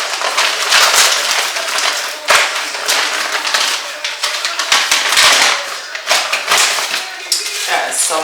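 Crinkling and rustling of plastic and paper packaging, a loud, crackly, uneven noise with many sharp crackles, as meal-kit ingredients are handled and unwrapped.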